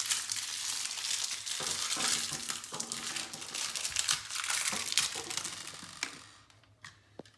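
Packaging crinkling as it is handled and opened, likely to get out the wire nuts supplied with the dimmer switch. It stops about six seconds in, followed by a few faint clicks.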